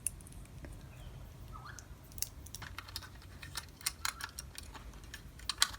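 Irregular small clicks and taps of plastic and metal parts being handled and fitted inside a disassembled toy revolver's hammer-and-spring mechanism, sparse at first and coming more often from about two seconds in.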